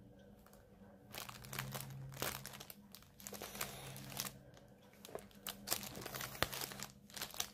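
Cross-stitch kit packaging crinkling and rustling as it is handled, in short irregular spells.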